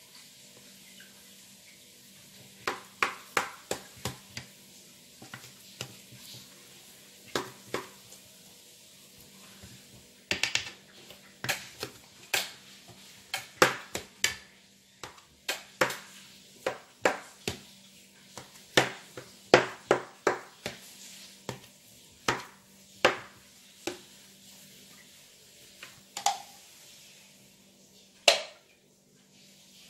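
A knife tip knocking and clicking against the bottom of a round metal baking tray as it cuts down through raw layered dough, in irregular sharp clicks, several quick runs of them with short pauses between.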